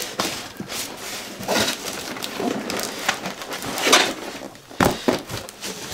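Cardboard shipping carton and the boxes packed inside it being handled: irregular rustling, scraping and knocking of cardboard as the smaller boxes are pulled out. The louder scrapes come about four and five seconds in.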